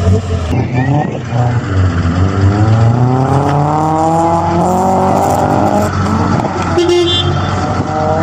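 Mazda pickup's V6 engine revving up under acceleration, its pitch rising steadily for a few seconds and then levelling off.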